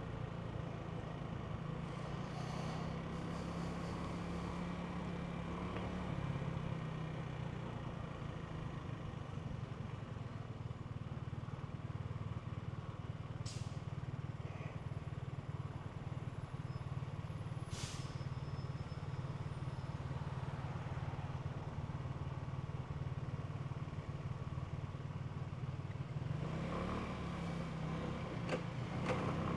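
Genuine Buddy 125 scooter's single-cylinder engine running under way, its note shifting a few seconds in and again near the end.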